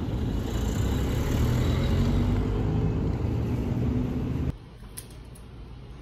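Loud, steady low rumble of outdoor street noise. It cuts off abruptly about four and a half seconds in, leaving quieter background.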